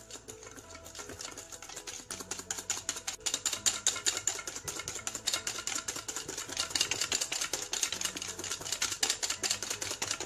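A wire whisk beating whipped cream by hand in a bowl: its tines click rapidly against the bowl's sides, several strokes a second. The clicking builds over the first couple of seconds, then keeps up as the cream thickens to a stiff, icing-like consistency.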